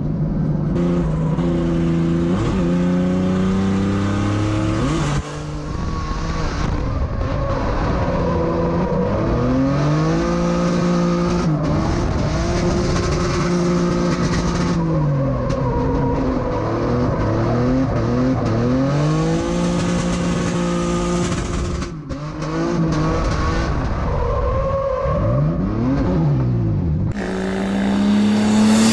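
BMW E36 drift car's engine heard from inside the cockpit, revving up and dropping back again and again as the car is slid through the corners. Near the end it is heard from trackside, sliding past with its tyres squealing.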